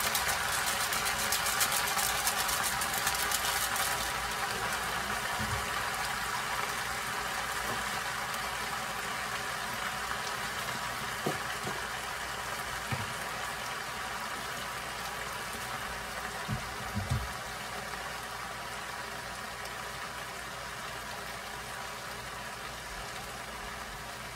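Leafy greens cooking in a hot nonstick frying pan: a steady sizzling hiss of steam and liquid, with dense crackling over the first few seconds, slowly getting quieter. A few soft low knocks come through in the middle.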